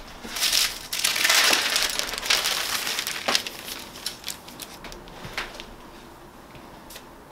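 Paper sheets crinkling and rustling as they are handled and smoothed flat on a heat press, loudest over the first three seconds, then thinning out to a few light ticks and taps.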